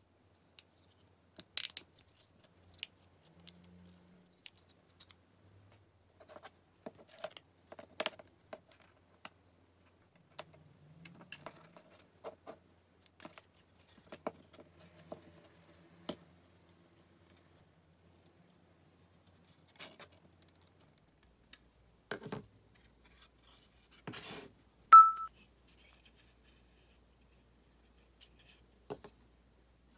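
Laser-cut wooden parts being handled and fitted together: scattered light clicks, taps and scrapes of wood on wood and on a cutting mat. About 25 s in, a single short, clear electronic beep stands out as the loudest sound.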